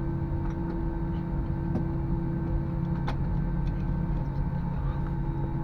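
Steady low hum inside an Airbus A321 passenger cabin while the plane is still parked, with a few faint clicks.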